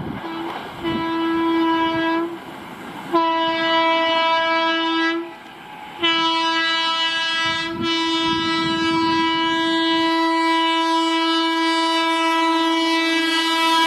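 WAP-7 electric locomotive's horn sounding on an express approaching at speed: a short blast about a second in, a longer blast about three seconds in, then one long held blast of about eight seconds. The train's running noise rumbles underneath.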